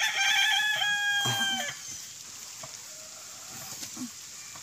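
A rooster crowing once: a single steady call of about two seconds with a small step in pitch partway through, then quiet with a few faint clicks.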